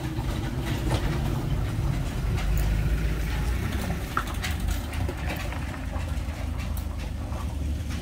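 Low, steady engine rumble of a passing road vehicle, with a few faint clicks.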